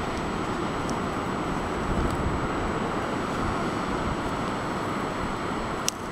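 Steady rush of wind buffeting the microphone over breaking sea surf. A single sharp click near the end.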